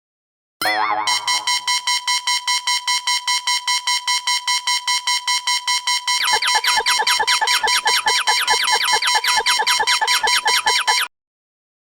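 Japanese railway crossing warning bell ringing rapidly in an even, steady beat. About halfway through, a second, lower-pitched crossing bell joins at the same rhythm, and both cut off suddenly near the end.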